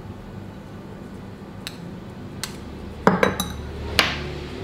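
A metal spoon clinking a few times against a glass mixing bowl and small condiment dishes, the loudest clink near the end, over a low steady hum.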